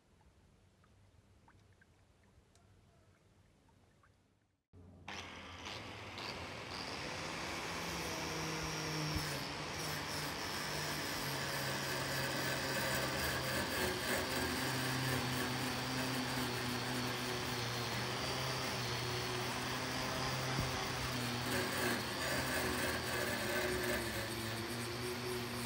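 About five seconds in, an angle grinder with a wire cup brush starts up and runs steadily, scrubbing rust off a flat steel blade: a steady motor whine over a scratchy hiss of wire on metal.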